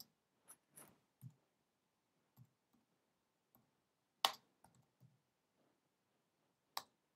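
Quiet, scattered clicks of a computer keyboard and mouse as a command is copied and pasted into a terminal, about a dozen in all, with the loudest two about four seconds in and near the end.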